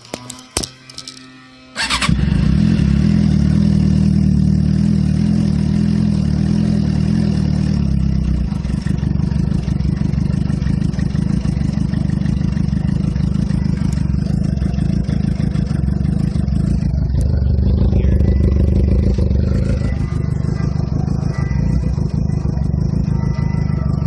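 2007 Suzuki GSX-R sportbike's inline-four engine cranked on the starter with a few short clicks, catching about two seconds in and then running steadily. The owner describes it as not settling to a normal idle and sounding weird, with a very rich exhaust after a cold night; he suspects the fuel pump isn't priming. The engine note changes around eight seconds in and rises briefly around seventeen to twenty seconds before settling.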